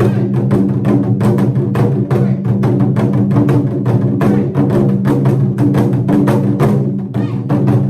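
Japanese taiko drums played in a fast, driving rhythm, several strikes a second. The drum heads ring low and steady between the strokes.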